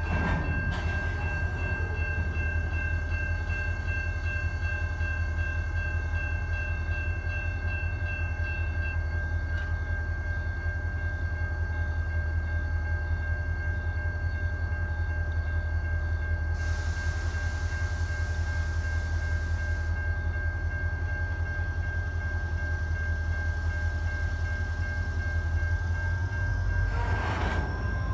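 CSX SD40-3 diesel locomotive and its freight train running past with a steady low rumble. A hiss lasts about three seconds some seventeen seconds in, and the sound swells louder near the end.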